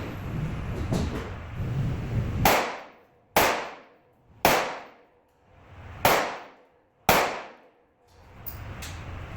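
Five shots from a Glock 17 9mm pistol mounted in a Micro Roni G3 carbine chassis, fired at uneven intervals over about five seconds. Each is a sharp crack with a trailing echo.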